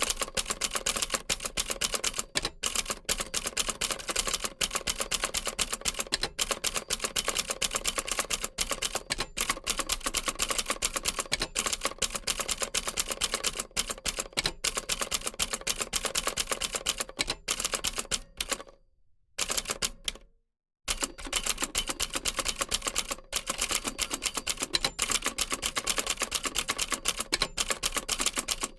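Old typewriter being typed on steadily: a fast, dense run of sharp key strikes, several a second. About two-thirds of the way through, the typing stops dead for about two seconds, then resumes.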